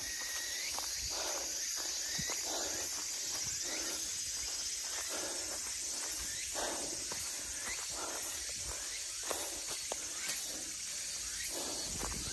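Footsteps of a hiker walking up a forest trail, irregular soft steps every half second to a second, over a steady high buzz of insects.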